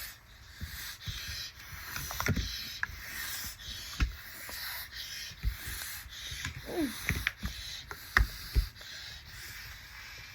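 A child breathing through a tracheostomy tube: an airy, wavering hiss with a wet rattle of mucus in the airway. Several short knocks and taps come from the plastic Play-Doh tub being handled, and a brief falling vocal sound comes about seven seconds in.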